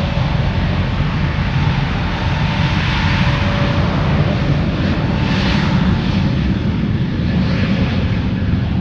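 Airbus A321 turbofan jet engines running loud and steady, a dense rushing noise with faint whining tones above it.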